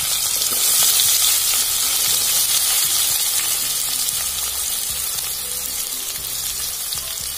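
Chopped onions, green chilli and curry leaves just added to hot oil and mustard seeds, sizzling in an aluminium pan: a steady high hiss that slowly grows a little quieter.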